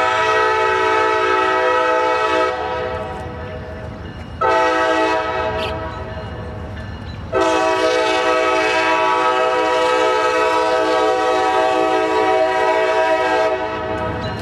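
CSX diesel locomotive's air horn sounding a chord of several notes in three long blasts. The first ends about two and a half seconds in, the second runs for about two seconds a little later, and the third, the longest, lasts about six seconds before cutting off near the end. A low locomotive rumble runs underneath.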